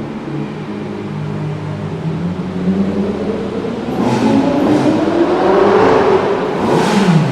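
Supercar engine running, then accelerating hard from about four seconds in, its pitch climbing steadily before falling away sharply near the end. A few sharp cracks sound during the acceleration.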